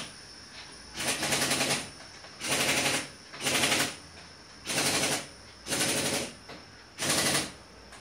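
A power tool rattling with a fast hammering in six short bursts, each under a second long, with brief pauses between them.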